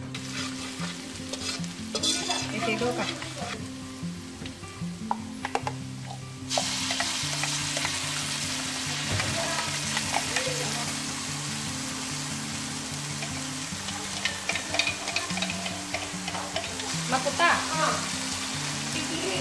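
Sliced shallots and then a yellow turmeric spice paste frying in hot oil in a metal wok, a steady sizzle with a metal spatula scraping and stirring against the pan. The sizzle turns louder and brighter about six seconds in.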